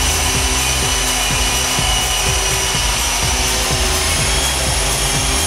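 Walkera CH-46 tandem-rotor RC electric helicopter hovering close by: its small electric motors whine steadily over the whir of the two rotors, with the rotor downwash buffeting the microphone.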